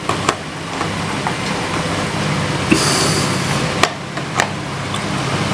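Steady background hum and hiss with a few light clicks and taps, and a brief high hiss about three seconds in.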